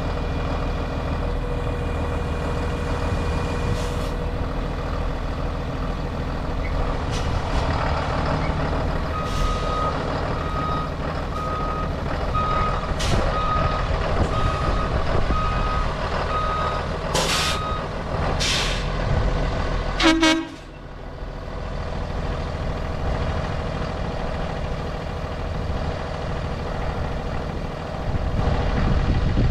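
A 2011 Blue Bird school bus running with its diesel engine idling. Partway through, its reverse alarm beeps about eight times, once a second, then two hisses of air are let out from the air brakes, followed by a sharp clatter.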